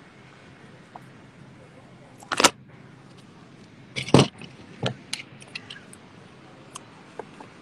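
Sharp knocks and clicks from the phone being handled and bumped against its microphone. Two loud knocks come about two seconds apart, followed by a string of smaller clicks, over a faint hiss.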